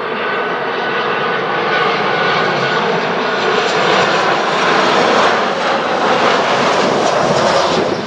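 Boeing 737-800's twin CFM56-7B turbofan engines at approach power, a steady jet rumble with a whine running through it. It grows louder over the first few seconds as the plane closes in.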